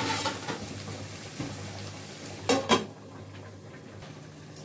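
Metal lid clattering onto a kadai of frying curry masala: a clatter at the start and two sharp metal knocks about two and a half seconds in, after which the sizzle goes quieter.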